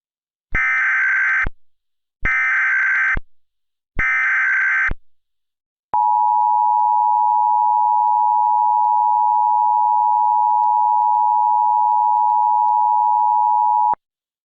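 Emergency Alert System tones: three one-second SAME header data bursts, buzzy and warbling, followed by the two-tone EAS attention signal, a steady loud tone held for about eight seconds before cutting off sharply.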